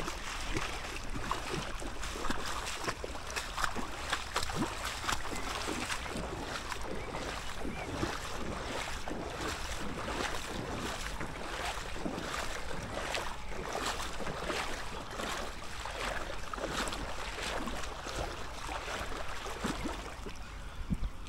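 Water of the flooded River Regen rushing and splashing in a dense, continuous patter, with wind rumbling on the microphone.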